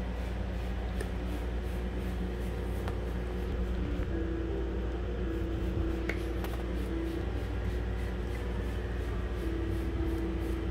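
Small dog gnawing on a chew stick: faint chewing, rubbing and an occasional click, over a steady low hum.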